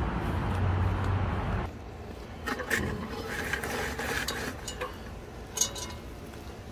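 A steady noise with a low hum cuts off suddenly a little under two seconds in. Then a cast-iron Dutch oven is set down on the fire pit's coals: scattered metal clinks and scrapes of the pot and its wire bail handle, with one sharp clank near the end.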